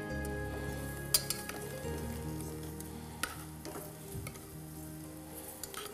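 Flour frying in oil in a pan on the stove, browning for a sauce, under soft background music. Three sharp metal clicks of serving tongs cut through, the loudest about a second in.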